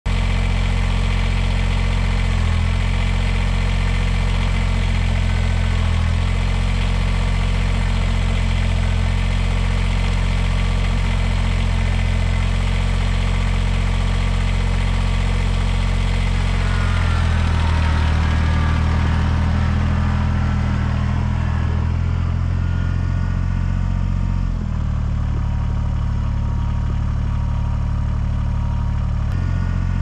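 Kubota compact tractor's diesel engine running steadily, its hum changing pitch abruptly a few times.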